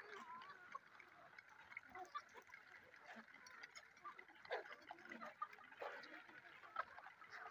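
Faint scattered ticks and a few soft clucks from a flock of desi chickens pecking feed off gravel ground.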